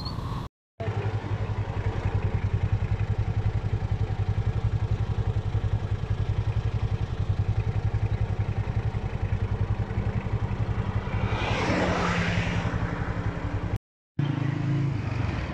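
Honda motorcycle engine running at a steady speed while riding, with an even, rapid throbbing. About twelve seconds in, a rushing noise swells and fades. The sound drops out briefly twice.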